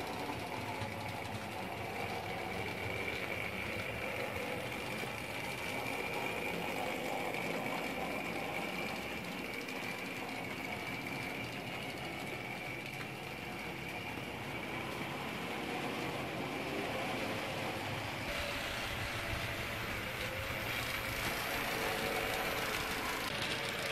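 Jouef HO-scale 140 C model steam locomotive running along the track with its train of wagons: a steady small-motor whir with a faint high whine, plus wheels rolling on the rails. The sound gets a little louder about three-quarters of the way through as the train nears.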